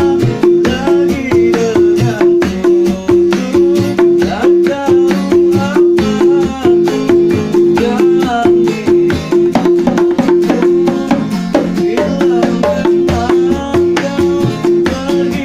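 Live dangdut music led by kendang hand drums playing a fast, steady rhythm, with a repeated pitched melody line over it.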